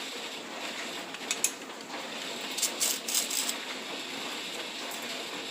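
Plastic packaging being peeled off a block of frozen ground beef, giving a few short crackles about a second and a half in and a cluster around three seconds in, over a steady hiss.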